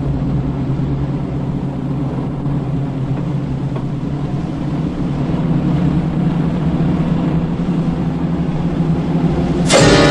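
Steady low engine rumble of an approaching armoured car, growing slightly louder. Near the end, loud music cuts in abruptly over it.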